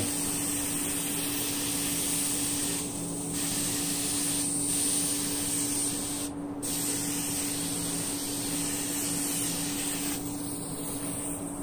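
Small gravity-feed detail spray gun from Harbor Freight spraying finish with a steady air hiss. The hiss cuts back briefly three times, about three, four and a half and six and a half seconds in, as the trigger is eased between passes.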